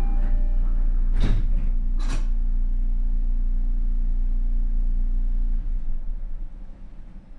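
Interior running sound of an Odakyu 5000-series commuter train with Mitsubishi SiC traction inverters: a steady low rumble. Two short, sharp hisses come less than a second apart, then a low steady hum that drops away about five and a half seconds in, as the car goes quieter.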